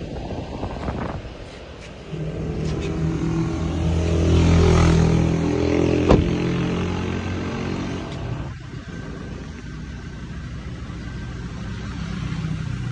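A motor vehicle passing close by, its engine swelling to a peak about five seconds in and fading away, with one sharp knock about six seconds in; a lower steady engine hum follows.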